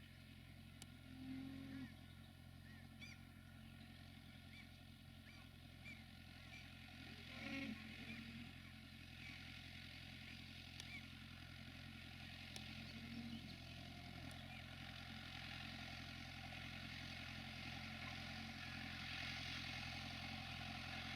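Tractor engine running steadily at work, a New Holland T6010 pulling a plough. The drone slowly grows louder toward the end, with a few short high chirps in the first half.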